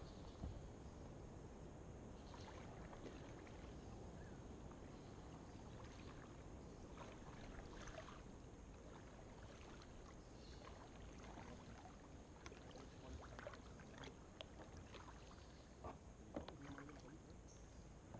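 Faint sounds of kayak paddling on calm water: scattered small splashes and drips from paddle blades over a low hiss.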